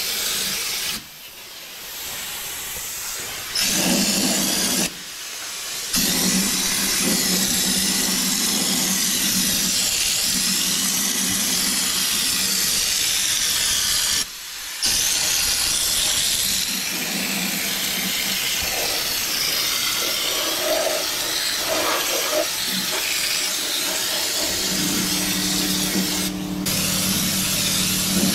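Compressed-air Schutz gun spraying underbody sealant, a loud steady hiss that stops briefly when the trigger is let go: about a second in, around five seconds in, and for a moment about fourteen seconds in. About twenty-five seconds in, a steady low machine hum starts under the hiss.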